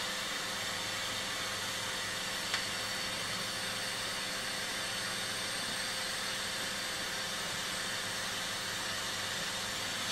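Steady hiss with a low hum underneath, and one small click about two and a half seconds in.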